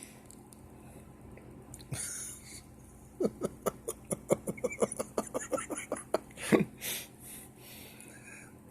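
A sleeping man snoring: one rasping breath, then a fluttering snore of rapid pulses lasting about three seconds, then two more loud breaths.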